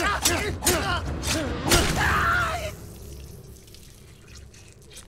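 Hand-to-hand fight sounds: a man's repeated strained grunts over sharp hits and scuffling, ending in a falling groan under three seconds in. After that only faint scuffling remains.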